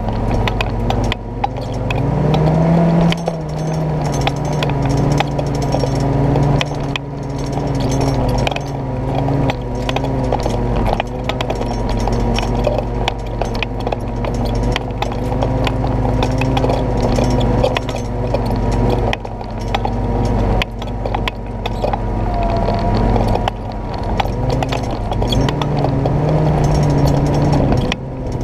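1948 Willys CJ2A's four-cylinder flathead engine pulling at low speed in a crawl over rock, its pitch rising as it is given throttle about two seconds in and again near the end. Constant rattling and clunking from the jeep's body and tyres over rough granite.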